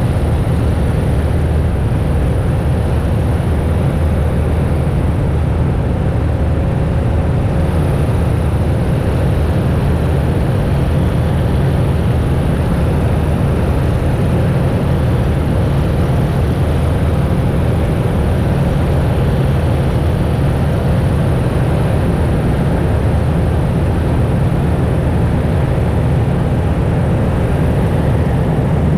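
An engine running steadily at a constant speed: a low, even hum that neither rises nor falls.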